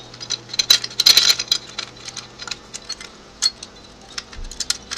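Motorcycle clutch plates clinking and clicking as they are wiggled by hand into the clutch basket to line up their teeth. The metal-on-metal taps come irregularly, with a dense cluster about a second in.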